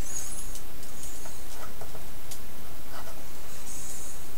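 Faint clicks and scratchy rubbing of a plastic Transformers action figure's parts being folded and flipped by hand, a few scattered ticks over steady background noise.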